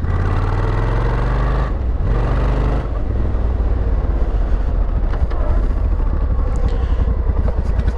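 Suzuki Intruder VS1400's V-twin engine running through Cobra drag pipes with their baffles in, as the bike rides at low speed, with a brief dip in level about three seconds in.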